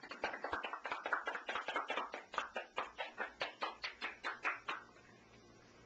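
A few people clapping by hand, irregular and quick, stopping about five seconds in.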